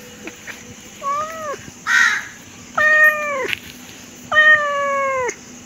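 Domestic tabby-and-white cat meowing three times, each call falling in pitch at its end, the last the longest. A short hoarse sound with no clear pitch comes about two seconds in.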